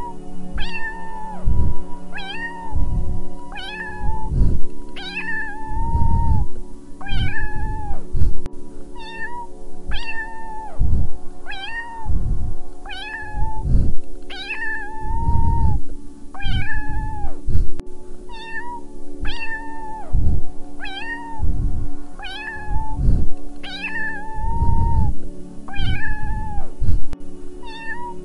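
Domestic cat meowing again and again, short meows about once a second, each much alike, over steady background music.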